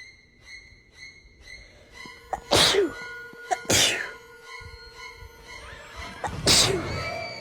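A person sneezing three times in a sneezing fit: two loud sneezes about a second apart a couple of seconds in, and a third near the end, each ending in a falling voice. Background music with a light beat plays underneath.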